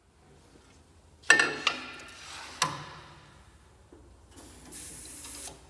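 Metal clanks and knocks on an Elumatec AF-221 end milling machine: a loud ringing clank, a lighter knock, and another sharp clank, then a hiss lasting about a second near the end.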